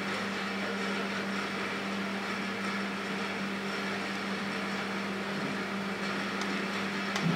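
Steady machinery hum with a constant low drone, and a couple of light clicks near the end.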